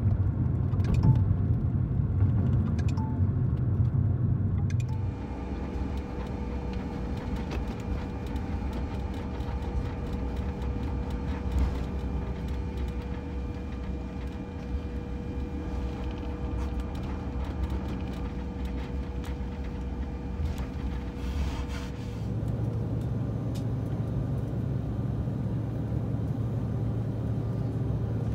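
Vehicle interior rumble: road noise inside a car on a highway for the first few seconds, then a passenger jet's cabin hum, which deepens into a steady engine drone about two-thirds of the way in as the plane takes off and climbs.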